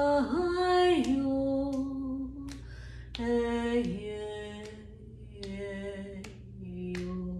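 A woman singing wordless, long held notes in a low voice, sliding down and back up between them, with a short break about two and a half seconds in. Several sharp clicks come at irregular moments through the singing.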